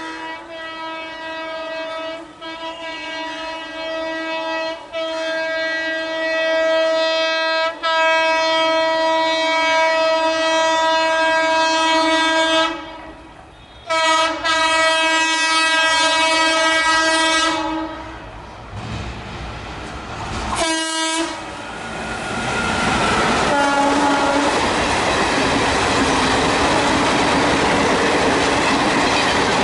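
WAP4 electric locomotive's horn sounding long, drawn-out blasts with only brief breaks for about seventeen seconds, growing louder as it approaches, followed by a short toot and one more brief honk. The train then passes at speed, its wheels clattering steadily over the rail joints.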